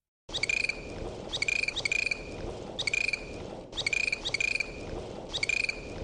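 Dolphin calling: a series of about eight short pulsed calls, each under half a second and some coming in pairs, over a steady background noise.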